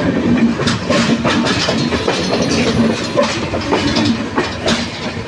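Passenger train running on the track, heard from on board: a steady rumble with irregular clacks and knocks of the wheels over the rails.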